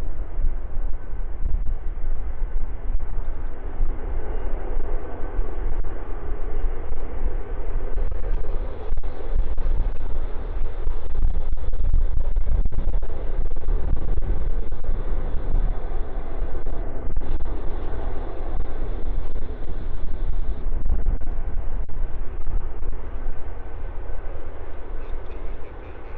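Jet aircraft engines rumbling during a takeoff roll, loudest about halfway through, under heavy wind buffeting on the phone's microphone that distorts the sound.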